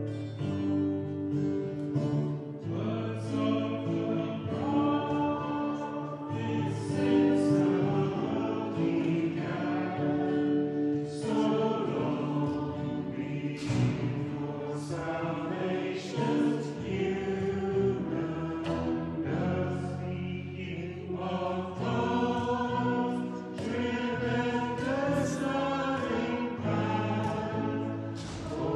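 Congregation singing a hymn with guitar accompaniment.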